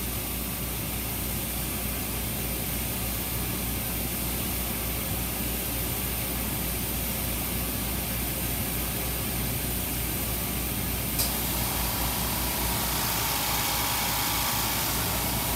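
Steady machine hum and hiss of a CO2 laser engraver at work, burning the powder coating off a metal ammo can. About eleven seconds in there is a click, then a louder hiss with a steady whine from an oil-free twin-cylinder air compressor running.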